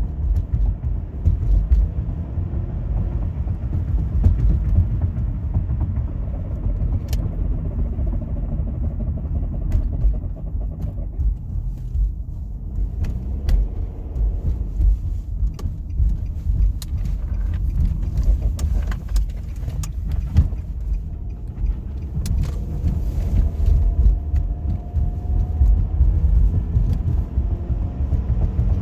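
Front-wheel-drive car on the move, a steady low rumble of road and running gear with scattered small clicks and rattles.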